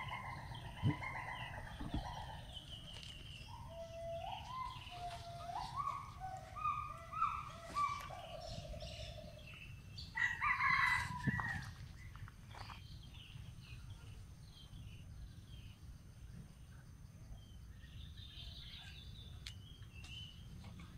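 Bird calls: a long pitched call at the start, a run of short rising notes about four to nine seconds in, a louder call about ten seconds in, and faint high chirps near the end.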